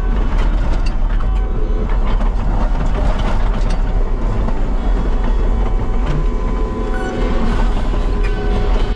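Diesel engine of a Case Minotaur compact dozer loader running hard while it works dirt, with frequent metallic clanks from the machine.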